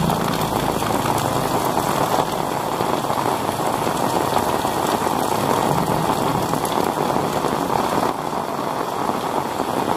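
Heavy rain falling steadily on roofs and a paved street, an even hiss.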